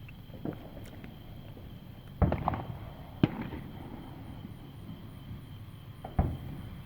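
Fireworks going off: a few separate bangs, with the loudest about two seconds in and again near the end, and a sharp crack about three seconds in, some trailing a low rumble.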